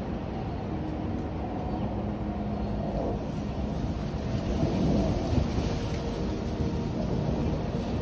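Gusty wind rumbling on the microphone and blowing through a tree, with a stronger gust about halfway through.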